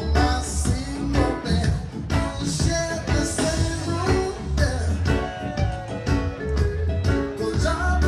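Reggae music: a voice singing over a heavy bass line and a steady drum beat.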